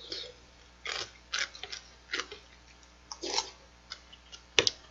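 Eating sounds: a handful of short slurps and mouth noises as spoonfuls of seolleongtang soup with rice are taken from a metal spoon, with a sharp clink of the spoon against the bowl near the end.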